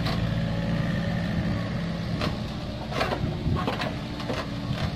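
Komatsu PC45 mini excavator's diesel engine running steadily under hydraulic load while the bucket digs and lifts soil, with several short sharp knocks from the bucket and arm.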